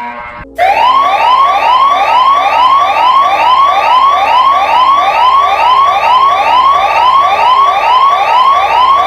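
Electronic emergency-alert siren sounding a short rising whoop over and over, about two a second, starting about half a second in.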